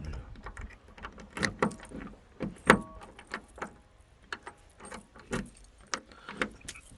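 Keys jangling and a key clicking and rattling in a stuck lock that won't open, with a string of sharp metallic clicks, the loudest about three seconds in with a brief ring.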